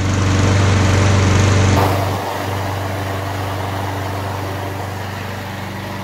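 Briggs & Stratton single-cylinder push-mower engine running steadily, louder for about the first two seconds, then settling to a slightly quieter even run. It is running well again after a new spark plug and a carburettor cleaning.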